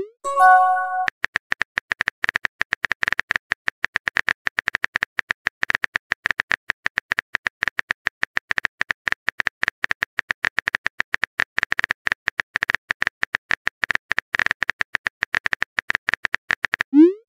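Simulated phone-keyboard typing clicks from a texting-story app, rapid and continuous as a message is typed out. About half a second in, a short chime of several tones marks a message being sent, and a rising swoosh comes just before the end.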